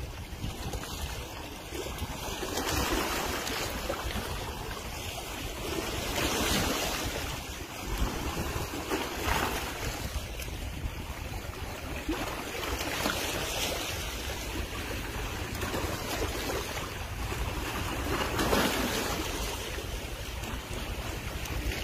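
Sea water washing and splashing, surging louder every few seconds, with wind rumbling on the microphone.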